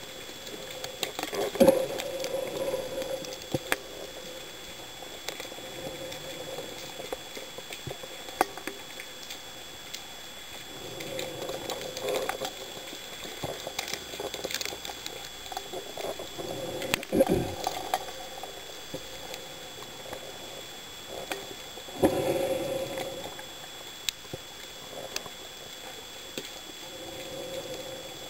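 Underwater sound heard through a camera housing: a diver's breathing and bubbling, swelling every several seconds, with scattered small clicks and a faint steady high tone.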